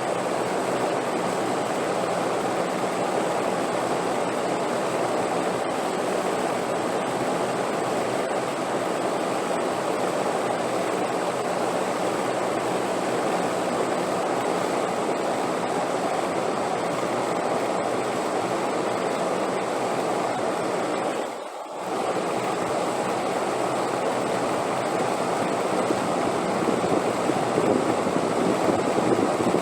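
Steady wind, an even rushing noise with no rise or fall, that drops away for a moment about two-thirds of the way through.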